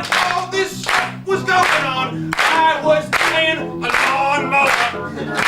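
Several voices singing a lively gospel-style song over piano, with hands clapping along to the beat.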